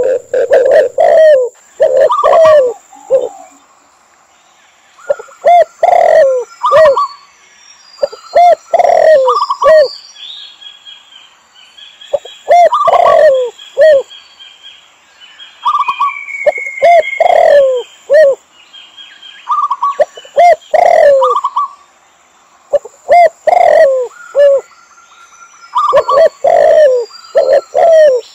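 Mixed dove calls of spotted dove, red collared dove and zebra dove: groups of short falling coos, two to four at a time, repeated every second or two with short pauses. Fainter, higher chirps and trills come between the groups.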